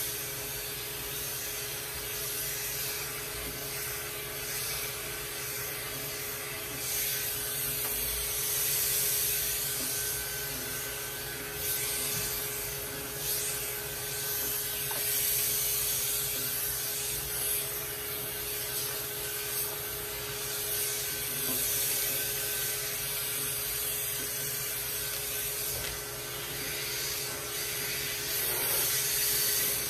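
Andis two-speed electric pet clipper buzzing steadily as it shears a Persian cat's coat, over the steady rushing of a clipper vacuum drawing the cut hair off the blade.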